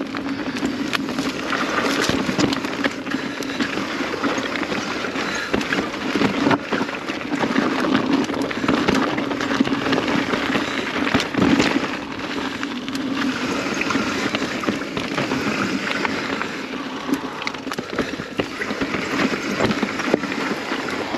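Enduro mountain bike being ridden down a rough trail: tyres rolling over dirt and rock, a steady rushing noise broken by many sharp knocks and rattles from the bike over the terrain.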